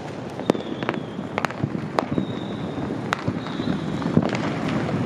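Fireworks going off all around: a constant crackling rumble with sharp bangs and pops at irregular intervals, about a dozen of them, and a few faint high whistles in between.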